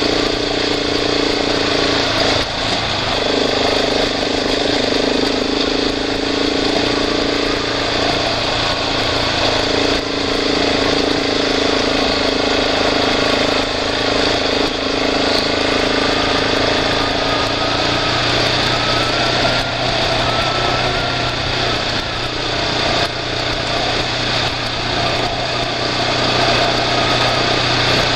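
Vehicle engine running steadily at low, even speed while driving along a rough dirt road. Its tone changes a little in the second half.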